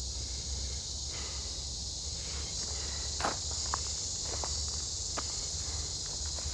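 Steady high-pitched insect chorus, like crickets or cicadas, with a few scattered short snaps and crackles in the middle.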